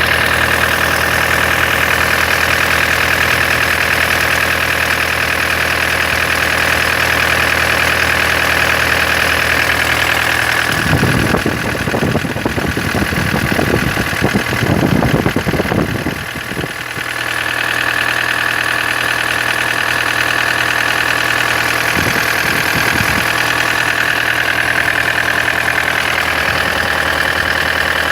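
Toyota 1KD-FTV four-cylinder turbodiesel idling with a steady high squeak from the alternator area. For a few seconds midway the squeak drops back while a rougher, irregular noise takes over, then the squeak returns.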